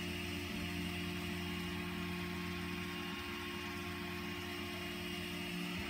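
EZB hobby servo in a 3D-printed Drupp robot neck turning the top geared stage, a steady hum. The servo runs slowly because it gets only 4.8 volts against its 7-volt rating.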